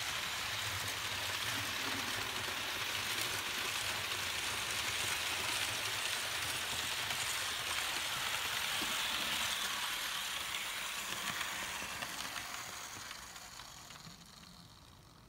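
HO-scale Märklin BB 9278 model electric locomotive and its coaches running along the track: a steady whirring hiss of the motor and wheels on the rails. It fades away over the last few seconds.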